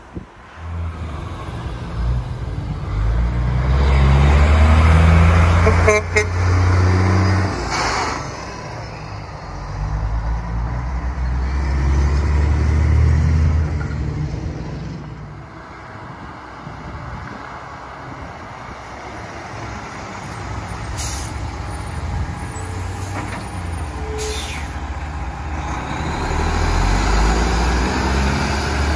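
Diesel semi trucks pulling tank trailers drive past one after another, the low engine sound swelling loud and fading as each goes by, about three times. A few short, sharp sounds cut in between the passes.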